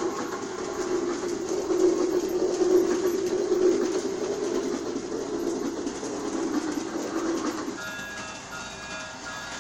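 Railking G scale toy steam train running on its track, a steady rumble of motor and wheels. Near the end a whistle of several tones at once sounds over it.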